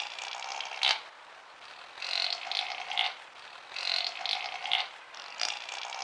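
A chamois cropping grass: repeated rasping tears of grass in its mouth, each bout ending in a sharp click, about every second and a half.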